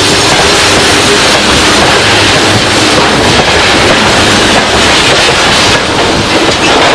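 Tank wagons of a freight train rolling past at close range: the wheels and coil-sprung three-piece bogies make a loud, steady rumble and rattle on the rails.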